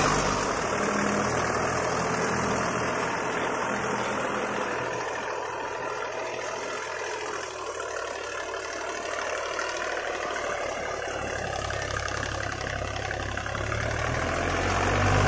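Deutz-Fahr Agrolux 50 tractor's diesel engine working steadily under load while driving a Shaktiman rotavator through the PTO in third gear low, the load pulling its RPM down, with the rotavator churning soil. It fades a little in the middle and grows louder again near the end.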